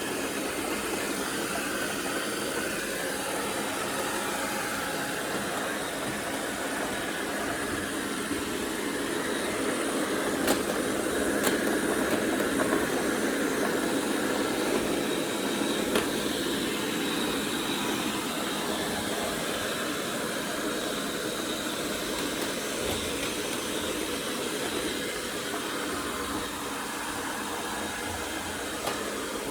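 Cordless vacuum cleaner running steadily, a little louder in the middle, with a few sharp clicks around the middle.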